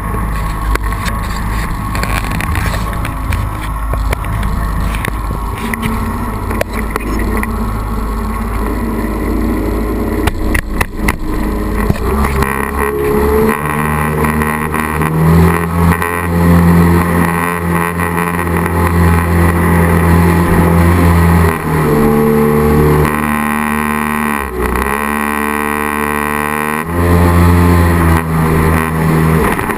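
Firefish jet boat under way at speed: a rush of wind and water on the bow, then the engine's steady drone comes through clearly. Near the end the engine eases off and picks back up once, its pitch dipping and rising.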